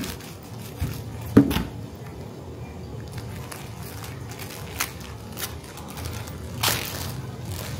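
Chef's knife cutting through a plastic-wrapped enoki mushroom base on a plastic cutting board, with a sharp knock about a second and a half in. A few lighter clicks and a brief rustle of plastic wrapping follow as the cut piece is handled.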